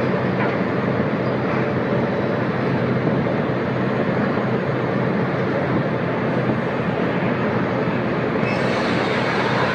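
Heavy open-pit mining machinery running: a steady, loud mechanical drone with a low hum underneath, growing hissier about eight and a half seconds in.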